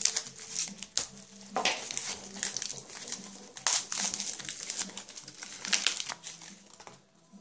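Clear plastic wrapping and bubble wrap crinkling and rustling as they are torn and pulled off a stack of circuit boards, in irregular crackles that stop near the end.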